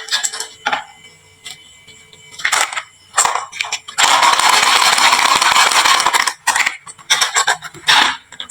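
Marbles rolling and clacking down a wooden HABA marble run: scattered sharp clicks, then a couple of seconds of continuous rolling rattle about four seconds in, then more clicks near the end.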